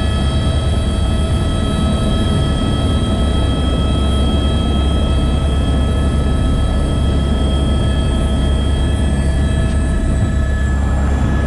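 Helicopter cabin noise: a loud, steady low rotor rumble under several constant turbine whines. Near the end the whines drop slightly in pitch.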